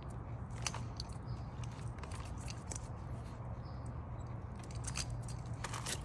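Alaskan Klee Kai dog chewing, with scattered crisp clicks and crunches over a steady low hum.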